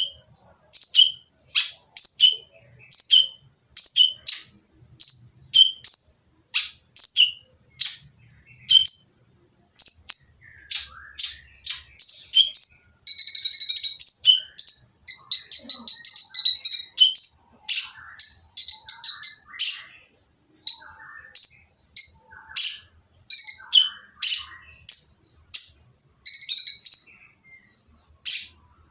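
Kolibri ninja sunbird calling, a harsh, noisy voice: a steady series of sharp, high chirps about two a second, breaking into a fast, dense trill about halfway through. It is the kind of call used to provoke other kolibri ninja into singing.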